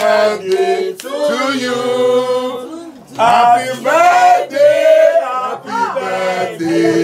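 A group of voices singing a song together without instruments, the sound dropping away briefly about three seconds in before the singing picks up again.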